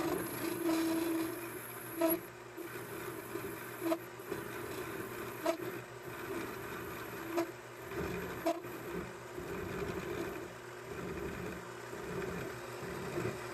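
Vevor mini metal lathe running, its cutting tool turning a steel bar down to a cone point, with a steady hum and short sharp ticks every second or two.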